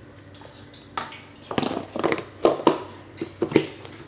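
Plastic food container with shrimp and flour coating being handled and shaken to coat the shrimp: an irregular run of knocks and rattles from about a second in until near the end.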